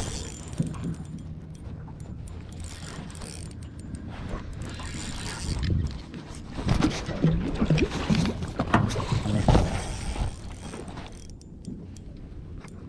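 Wind on the microphone and water lapping against a small aluminium boat, with a busy stretch of knocks and clattering handling noise in the middle few seconds as a hooked fish is brought alongside on a light spinning rod and reel.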